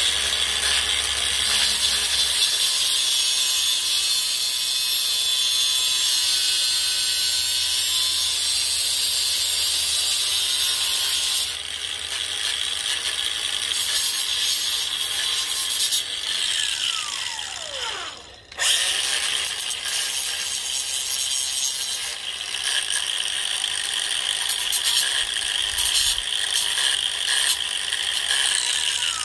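Angle grinder grinding the steel stinger of a CB antenna whip, cutting a quarter inch off to shorten the antenna and bring the SWR down. It runs with a steady hiss of disc on metal, is switched off about 16 seconds in and winds down with a falling whine, starts again about two seconds later, and begins winding down again right at the end.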